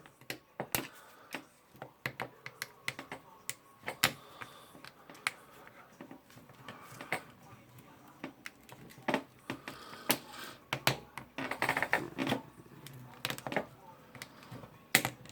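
Irregular metallic clicks and scrapes of a screwdriver prying a retaining ring off the tool holder of a Bosch rotary hammer drill, with a denser run of clicks about eleven seconds in.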